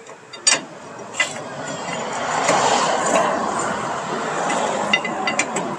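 A vehicle passing on the road: its tyre and engine noise swells to a peak midway and fades away. A few sharp clicks come near the start and near the end.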